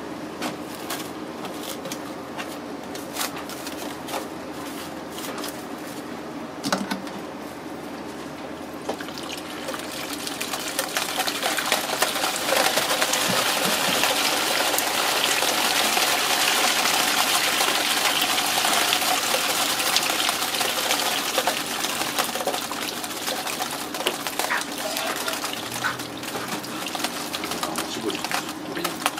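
Live loaches thrashing and splashing in a shallow metal tray under plastic wrap, with the wrap crinkling. The splashing swells about ten seconds in, holds for around twelve seconds, then eases.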